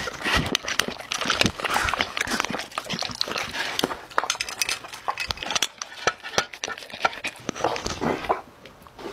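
A dog eating dry kibble from glass bowls: fast, irregular crunching and chewing, with kibble and teeth clinking against the glass. The crunching thins out near the end.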